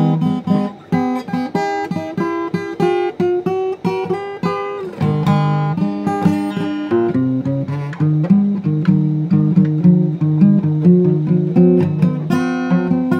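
Acoustic guitar playing a blues figure: a run of quick picked notes over a repeating low bass line, with a few notes that bend or slide in pitch.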